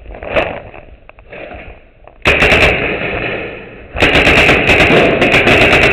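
Paintball markers firing in rapid strings of shots: a short burst about two seconds in, then continuous rapid fire from about four seconds in, the shots packed so close they merge into a dense rattle.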